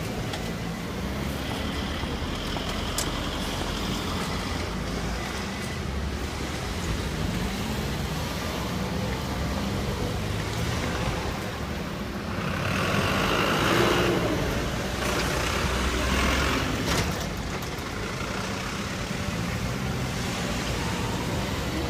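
Road traffic with a steady engine rumble; one vehicle passes more loudly about halfway through, rising and then fading.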